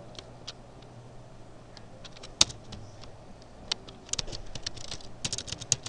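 Computer keyboard being typed on: scattered key clicks, one sharper click about two and a half seconds in, then a quick run of keystrokes in the last two seconds, over a faint steady low hum.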